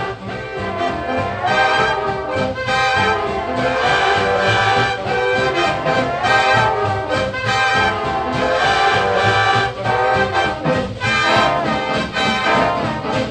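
Instrumental big-band music with brass, trumpets and trombones, playing a lively tune.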